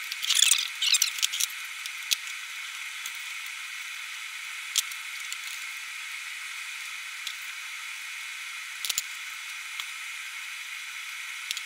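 Steady high hiss with a few sharp clicks and some brief high chirping near the start. This is the sped-up, thinned sound of a time lapse in which the gantry bolts of a 3D printer frame are tightened with an Allen key.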